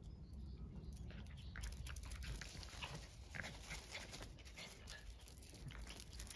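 A puppy play-fighting with a cat: faint scuffling and rustling of paws on concrete and grass, with a few short, high dog sounds scattered through.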